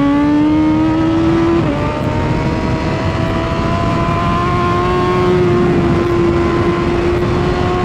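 2016 BMW S1000RR's inline-four engine running at high revs under throttle, its pitch climbing, dipping sharply about two seconds in, then holding fairly steady. Heavy wind rush over the onboard microphone.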